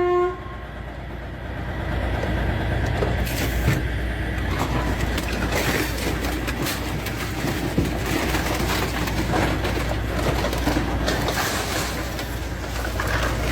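High-speed train running at speed: a steady rushing, rumbling noise with a heavy low rumble that holds throughout.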